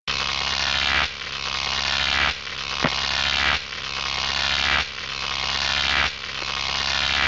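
Electronic intro sound effect for an animated logo: a buzzing, rising swell over a steady low hum. It repeats about every second and a quarter, each swell growing louder and then cutting back, with a single sharp click near the middle.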